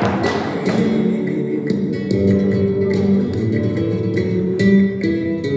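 Flamenco guitar playing alegrías, plucked notes and strummed chords going on steadily.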